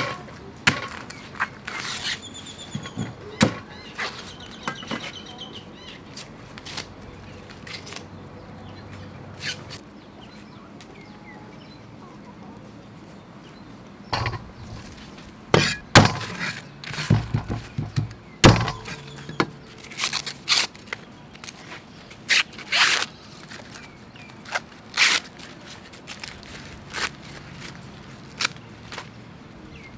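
Sweet corn being prepared by hand: a cleaver knocking through cobs and husks onto a wooden chopping board, cobs set down in a metal bowl, and husks stripped off. It is heard as scattered sharp knocks and thunks, with a quiet spell before the busiest run in the second half.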